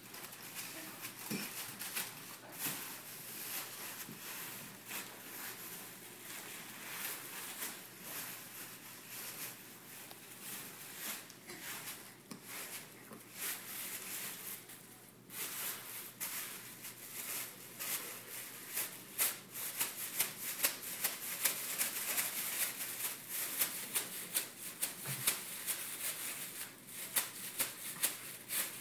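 Thin plastic grocery bags crinkling and rustling as a baby grabs and shakes them, a steady run of crackles that grows louder and busier in the second half.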